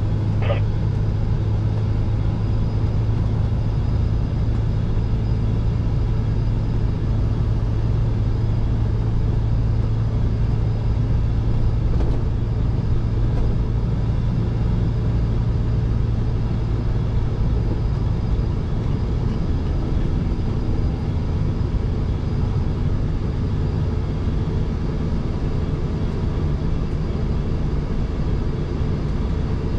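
Scania truck heard from inside the cab while driving, a steady low engine drone with road noise. The strongest low engine note holds for about the first eighteen seconds, then drops away while the drone carries on.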